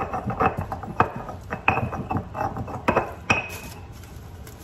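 Stone pestle pounding and grinding in a volcanic-stone molcajete: a quick, irregular run of hard stone-on-stone knocks and scrapes, some with a short ring, that stops about three and a half seconds in.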